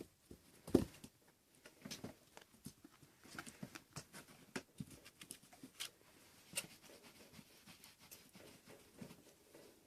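Six-week-old kittens playing: irregular soft thumps, taps and scuffling of small paws and bodies, with one louder thump about a second in.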